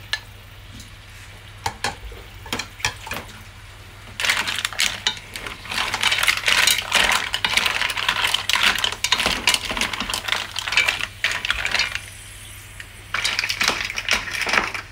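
Mussel shells clicking and clattering against each other and the sides of an enamel pot as they are stirred with a wooden spatula. A few scattered clicks at first, then about four seconds in a dense, continuous clatter, with a brief pause near the end.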